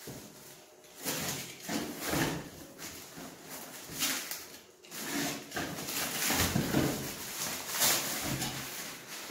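Plastic wrapping crinkling and tearing as a parcel is cut open, with the cardboard box inside being handled and opened; irregular rustles and crackles starting about a second in.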